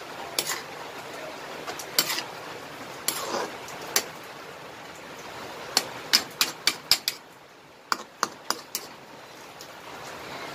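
Metal spatula stirring napa cabbage in a wok, clinking and scraping against the pan in irregular strikes, with a quick run of taps about six to nine seconds in, over a steady background hiss.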